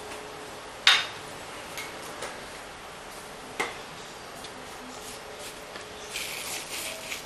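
A sharp click about a second in and a fainter one midway, then masking tape being peeled from the border of a painting: a short crackly tearing near the end.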